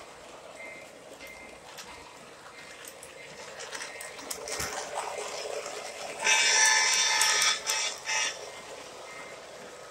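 Lionel O gauge Lehigh Valley diesel locomotive's electronic sound-system horn blowing one long blast of about a second and a half, then a short one. Before the horn there is a faint rumble of the model train running on its track.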